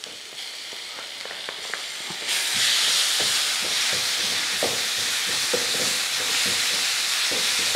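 Onion-and-spice masala frying in a non-stick wok, with green chili paste just added. The sizzle steps up sharply about two seconds in and then holds steady, while a wooden spatula stirs with light scrapes and taps against the pan.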